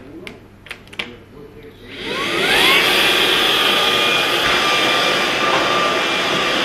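A few light plastic clicks as a cordless stick vacuum is handled. About two seconds in, its motor spins up with a rising whine and then runs steadily, a high whine over a loud rush of air.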